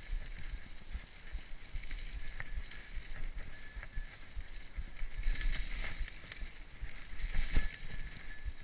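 Mountain bike riding over a leaf-covered dirt trail: tyre noise on the leaves and dirt, with the bike clattering and knocking over bumps, roughest about five to six seconds in and again near seven and a half seconds.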